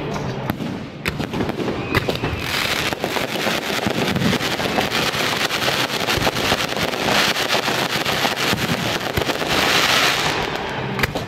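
Aerial fireworks going off: sharp bangs of bursting shells with a dense crackling that thickens from about two and a half seconds in and eases off near the end, picked up by an HTC One phone's microphone.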